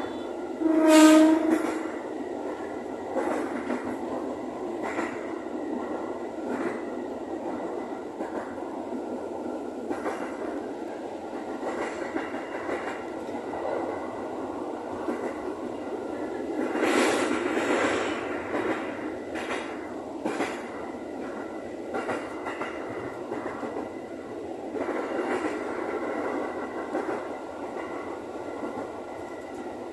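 JR 205 series electric commuter train running, heard from the driver's cab: one short horn blast about a second in, then steady running noise with the wheels clicking over rail joints every second or two, and a louder swell of rushing noise a little past halfway.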